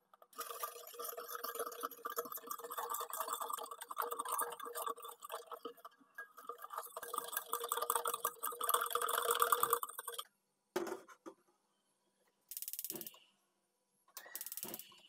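Metal balloon whisk beating cocoa, sugar and milk in a stainless steel saucepan: a fast, continuous clinking and scraping of wire on steel through liquid for about ten seconds, then it stops. A few short separate sounds follow, with two brief bursts of rapid clicking near the end.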